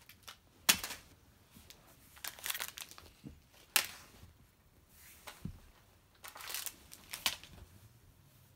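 Intermittent rustling and crinkling in about five short, irregular bursts, the sharpest about a second in and just before four seconds in.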